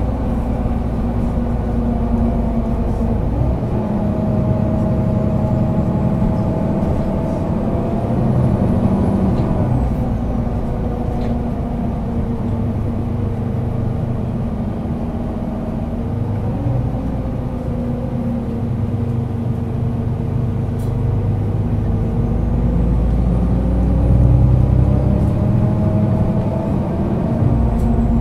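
Solaris Urbino 12 III Euro 6 diesel city bus driving, its engine and drivetrain whine rising and falling in pitch several times as it speeds up and slows down.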